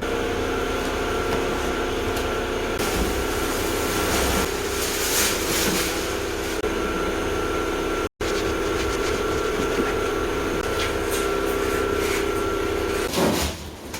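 A steady machine drone with several held tones over a low rumble, dropping out for an instant about eight seconds in and stopping near the end.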